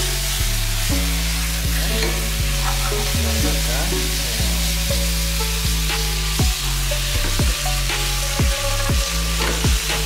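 Beef slices and onion sizzling in margarine and teriyaki sauce in a nonstick frying pan, with the pan being shaken and a spatula stirring and knocking against it in the second half.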